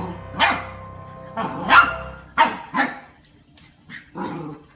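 Golden retriever puppy barking, a run of about six short, sharp barks at uneven intervals, the loudest just under two seconds in.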